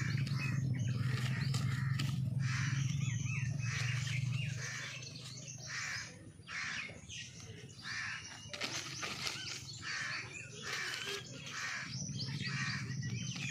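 Birds calling among trees: crows cawing and smaller birds chirping, many short calls one after another. A low steady hum sits underneath, fading out a few seconds in and coming back near the end.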